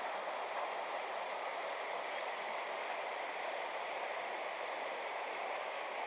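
Steady rushing of running water, the even sound of a stream or cascade, holding level throughout.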